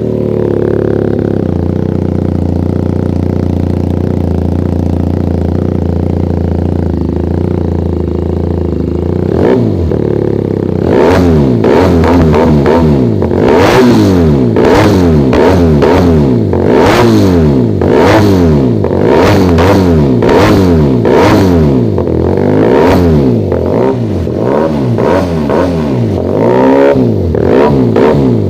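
Motorcycle engine breathing through an SC-Project aftermarket exhaust, just started: it idles steadily for about nine seconds, then is revved again and again in quick throttle blips, each one rising and falling in pitch.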